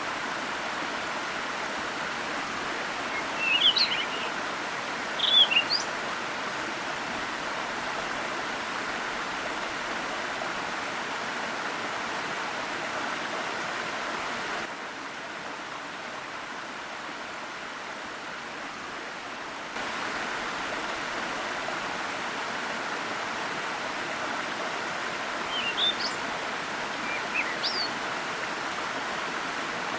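Steady rush of a forest waterfall's cascading water, with a songbird giving short chirping phrases twice a few seconds in and twice near the end. About halfway through, the water sound drops quieter and duller for roughly five seconds, then returns.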